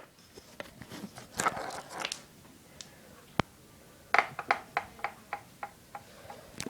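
Toys being handled and set in place: a stretch of rustling and handling noise, then a single sharp click, then a run of about eight light clicks or taps, roughly three a second, near the end.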